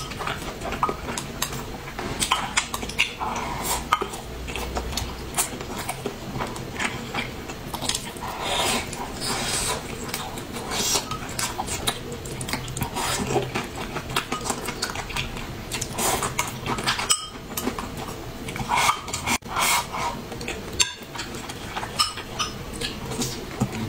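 A person eating: chewing, with frequent irregular clicks and taps of chopsticks against a glass rice bowl.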